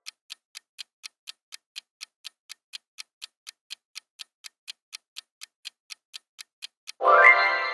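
Quiz countdown-timer sound effect: a clock ticking evenly, about four ticks a second. Near the end a bright chime rings out and fades, the time-up answer-reveal sting.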